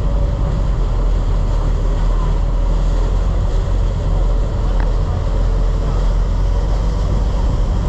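Fishing boat's engine running steadily under way, with wind rumbling on the microphone and the wake washing behind the stern.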